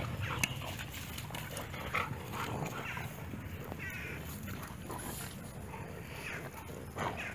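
Dogs making small noises, with a few short calls: one about four seconds in and another near the end.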